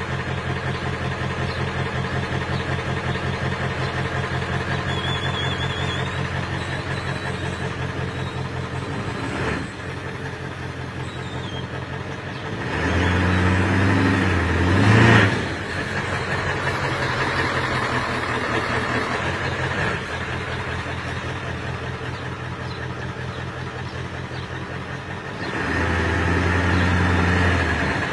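7.3L V8 diesel engine of a 1997 Ford F350 running at a steady idle, with two stretches of a few seconds where it runs louder, about halfway through and near the end.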